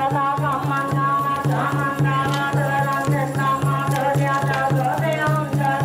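Buddhist chanting during a goma fire ritual: voices chanting in unison over a steady temple drum beat of about four strokes a second.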